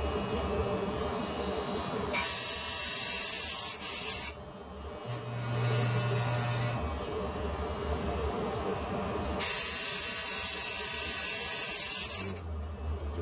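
Electric hair clippers buzzing during a self-given haircut. There are two stretches of loud hissing, each about two seconds long, one about two seconds in and one near ten seconds in.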